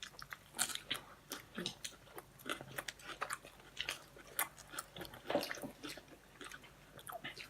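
Close-miked chewing and biting of food, with irregular short wet clicks and smacks from the mouth.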